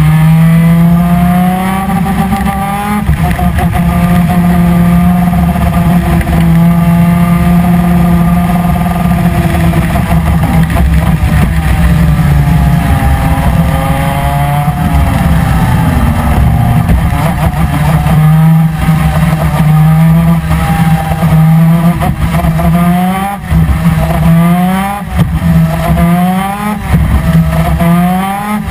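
Two-stroke 250 cc twin-cylinder PVP superkart engine at racing speed, heard from onboard the kart. It holds high revs for several seconds, its pitch falls about halfway through and climbs again, and near the end it rises in a quick series of short climbs, each cut off and starting again as the gears go up.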